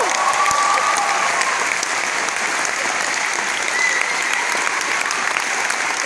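A large audience applauding steadily, with a faint held call or whistle near the start.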